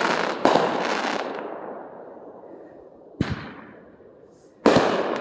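Fireworks going off: a crackling burst that fades away over a couple of seconds, a single bang about three seconds in, then a sudden loud crackling burst near the end.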